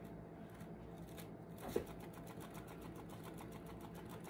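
Spinning turntable under a freshly poured acrylic painting, clicking rapidly and evenly as it turns, with a short knock just under two seconds in. The clicks grow clearer after about two seconds as the spin gets going.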